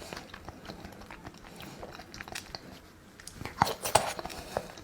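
A person chewing and biting food close to the microphone: scattered small wet clicks, with a few louder bites near the end.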